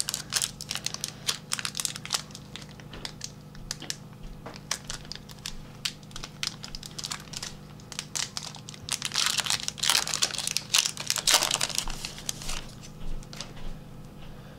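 Foil wrapper of a wrestling trading card pack crinkling and tearing as it is opened, in a run of rustles and small clicks that is busiest about nine to eleven seconds in. A faint steady hum lies underneath.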